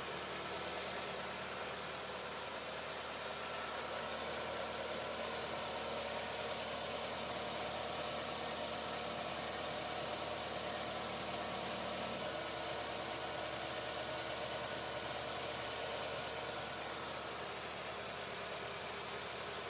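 Car engine idling steadily under an open hood, with the headlights, blower and other accessories switched on as electrical load on the alternator.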